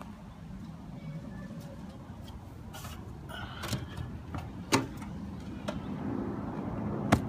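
Someone climbing an aluminium ladder: a handful of clanks and knocks as feet and hands meet the rungs, the two loudest about five seconds in and near the end, over a low background rumble.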